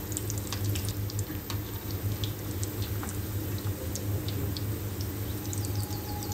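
Breaded chicken patties deep-frying in hot oil: a steady sizzle with many small crackling pops, over a low steady hum.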